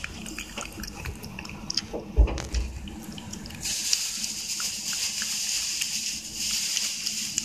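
A cat licking purée from a bowl, a run of small wet smacking clicks, with a single low thump about two seconds in. About halfway through, a steady wet hiss joins the licking.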